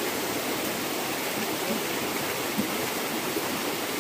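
Steady rush of running water from a jungle river, an even hiss with no breaks.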